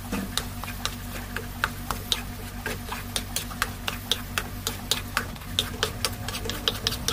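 Spatula stirring thick grated cassava mixture in a metal wok, knocking and scraping against the pan in irregular sharp clicks several times a second, over a steady low hum.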